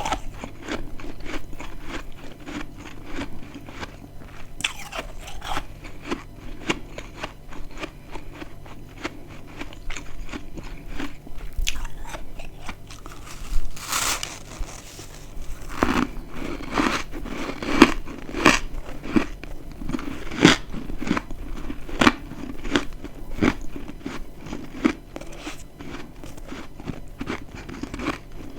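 Close-up biting and chewing of dry, crispy chunks of freezer frost: continual crackling crunches, one loud bite about halfway through, then steady rhythmic crunching chews.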